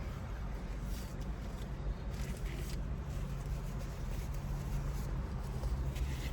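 Steady low rumble of a car engine idling, heard inside the cabin, with a few short crackly noises about a second in, two to three seconds in, and near the end.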